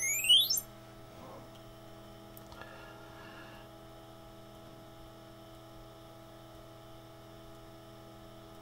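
A rising electronic tone sweep from the TRS-80 Model 4P's speaker, played by the diagnostic disk's sound board test, ends about half a second in. It is followed by a faint, steady electrical hum.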